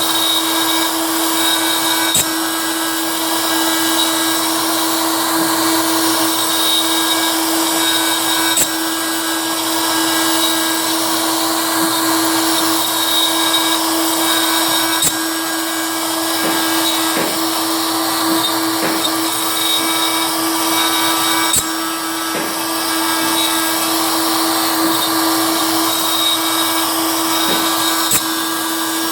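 A machine tool running steadily during machining, giving a constant whine and whirr, with a sharp click about every six and a half seconds.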